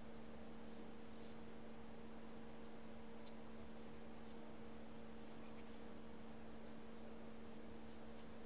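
Faint soft scratching of a paintbrush working gouache onto paper in short strokes, over a steady low electrical hum.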